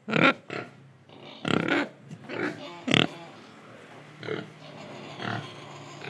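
Young pigs grunting and oinking in a string of short calls, about eight in six seconds, with the loudest at the start and about three seconds in.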